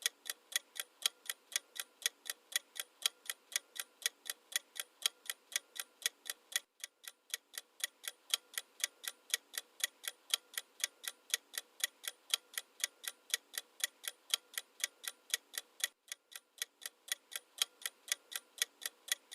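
Clock-ticking sound effect: quick, even ticks, louder and softer in turn, with two brief breaks in the rhythm.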